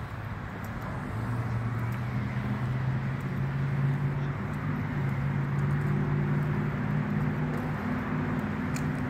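A motor vehicle's engine running steadily, a low hum that comes in about a second in and slowly grows louder, over outdoor background noise.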